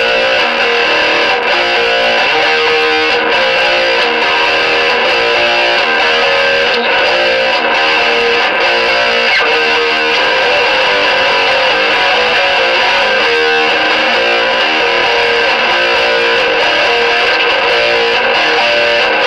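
Epiphone Prophecy electric guitar played through high-gain tube amps, a Mesa Boogie Nomad 55 on its second channel and a Hughes & Kettner TubeMeister 36, with stacked gain pedals including a Boss Metal Core: a heavily distorted, tight metal riff played without a break.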